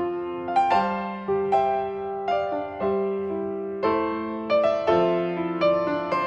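Background piano music: gentle chords and melody notes struck every half second or so.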